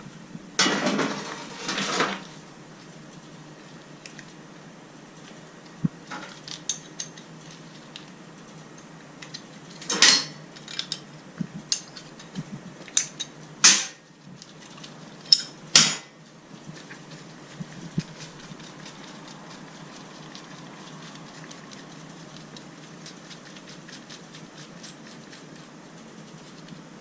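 Metal tools and motorcycle parts clinking and knocking during chain and sprocket work: a scattered handful of sharp clinks, the loudest about ten, fourteen and sixteen seconds in, after a short clatter at the start.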